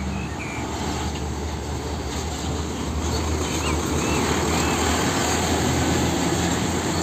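Turbo-intercooled diesel tractor unit pulling a container semi-trailer past, its engine running with a steady low drone under continuous road and tyre noise.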